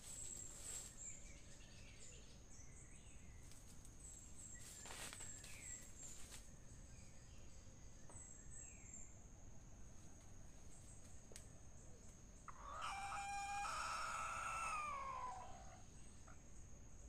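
Red junglefowl rooster crowing once, a call of nearly three seconds about three-quarters of the way in that drops in pitch at its end, over a steady high insect trill.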